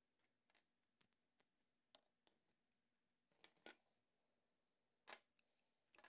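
Faint handling noise of a 3D-printed plastic part being trimmed of its support material and brim: scattered small clicks and snaps, with two short scrapes about three and a half and five seconds in.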